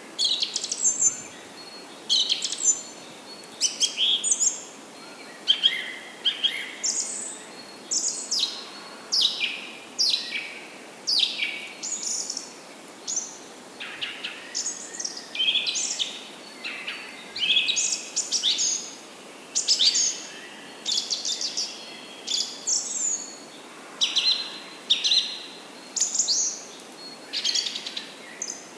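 Birds calling: short, sharply falling chirps repeated about once a second, over a faint steady hiss.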